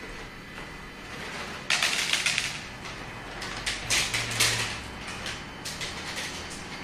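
Several cats crunching dry treats, a rapid crackle of small bites that comes in bursts, loudest about two seconds in and again about four seconds in.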